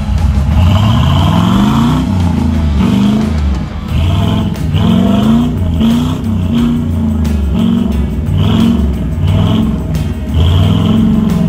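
Ford Bronco II's engine revved in repeated short bursts, its pitch climbing and dropping back about once a second.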